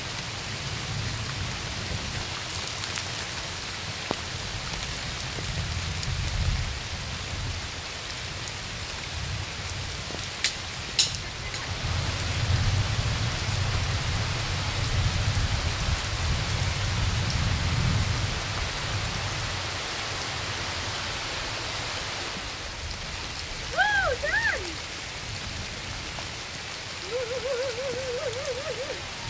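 Heavy rain pouring steadily, with deep rumbling swells that come and go. Near the end there are a few short high-pitched gliding sounds and then a brief wavering tone.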